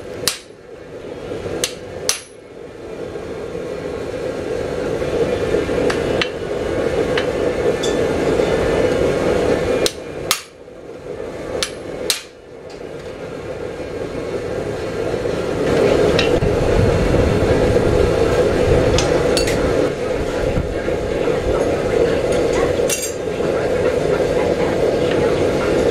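Hammer blows ringing on a tool held against hot steel on an anvil: a handful of sharp strikes in two groups, near the start and around the middle, with a few light taps later. Between them is a steady background noise.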